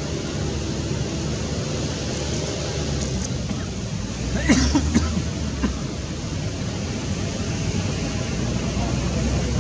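Steady outdoor rumble and hiss, with a short cluster of high, pitched calls about halfway through.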